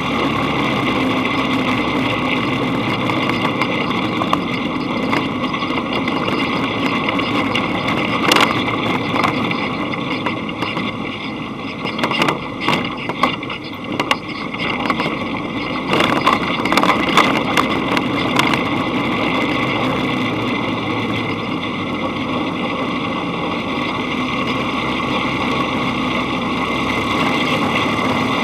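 Dune buggy engine running steadily while driving on a dirt track. Clusters of sharp knocks and rattles come about a third of the way in and again just past the middle, as the buggy jolts over the rough road.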